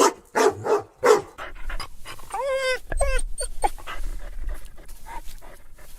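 Dog crying: a few sharp yelps in the first second, then high-pitched whimpering whines that rise and fall, the later ones shorter.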